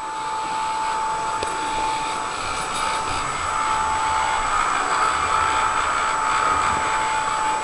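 A steady whirring motor noise with a constant high whine running through it, unbroken and even in level throughout.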